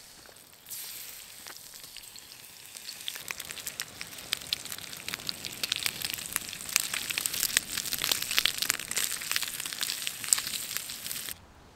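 Bacon sizzling in a frying pan over campfire coals, full of sharp pops and crackles. The sizzle grows louder over the first few seconds and cuts off suddenly near the end.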